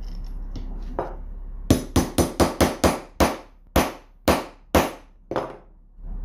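Hammer blows on the head of a steel hex bolt, driving it into a plywood strip: about ten sharp strikes, quick at first and then slowing to about two a second.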